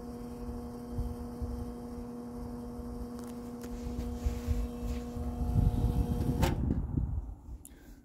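1960s Arvin 7414 box fan running with a steady motor hum and air rush. About six and a half seconds in it is switched off with a click: the hum stops and the blades spin down, the air noise fading out.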